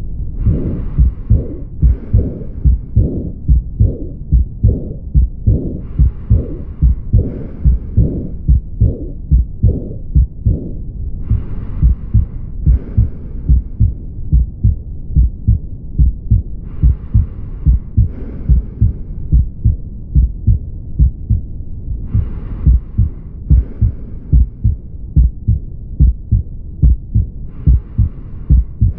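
Heart sounds with the murmur of aortic regurgitation: a steady, regular heartbeat. A pair of brief hissy sounds recurs about every five and a half seconds.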